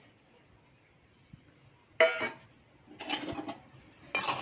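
Near silence, then a single metal clink with a short ring about halfway through and a brief scrape a second later. Near the end come the loud, steady rattle and scrape of dry urad dal being stirred with a spoon in a metal kadai.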